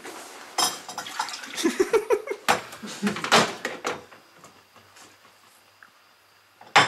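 Water poured from an electric kettle into a cup, with knocks and clinks of the kettle and cup being handled, over about the first four seconds.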